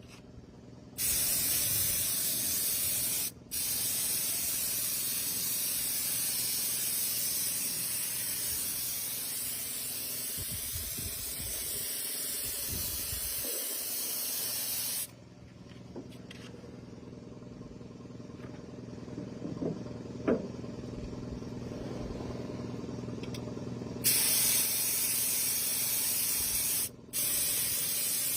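Air paint spray gun hissing as paint is sprayed, in long trigger pulls. One long pull, with a short break soon after it starts, stops about halfway. A quieter stretch of steady low hum follows, then spraying resumes near the end with brief breaks.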